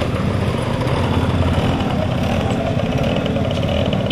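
Slow-moving road traffic close by: the engines of a van and motorcycles running steadily at low speed.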